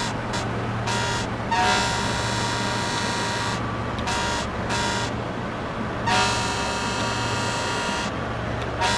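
Ship's horn sounding a series of blasts: a few short toots and two long blasts of about two seconds each, over a steady low hum.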